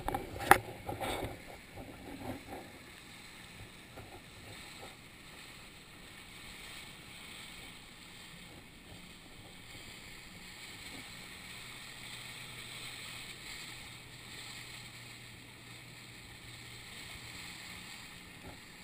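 Rubber boat under way: a steady rush of wind and water with a faint low motor hum, and a few sharp loud knocks in the first second or so.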